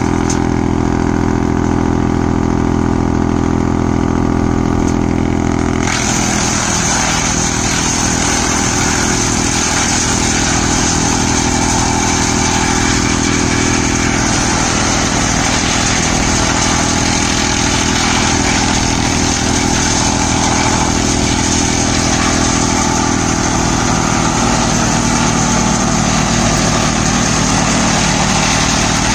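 Tractor and wood chipper running steadily under load as green branches are fed in and shredded, a continuous engine drone with a hiss of chipping over it. The sound grows noisier and brighter about six seconds in and stays so.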